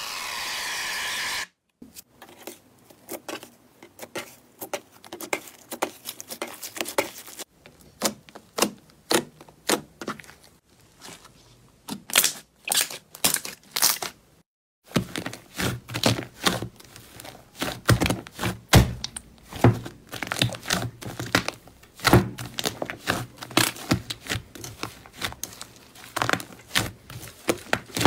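An aerosol foam can hissing as it sprays foam onto a slime, cutting off about a second and a half in. Then slime being pressed and kneaded by hand, a dense run of small crackles and pops of trapped air, louder and busier in the second half.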